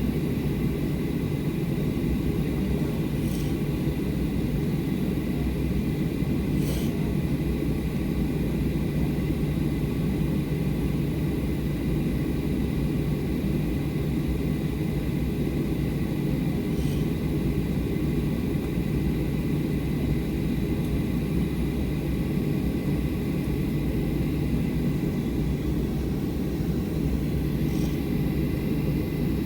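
Steady cabin rumble of a Boeing 737-800 taxiing after landing, its CFM56 engines at idle, with a faint steady whine and a few faint clicks.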